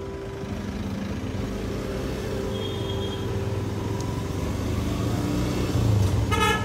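Motorcycle engine running at low speed, getting gradually louder, with a short horn beep near the end.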